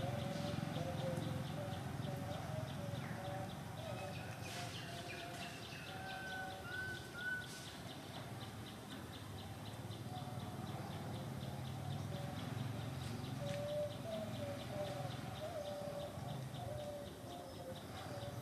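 Outdoor woodland ambience: an insect chorus ticking evenly several times a second throughout, with birds calling on and off and a brief higher bird call about seven seconds in.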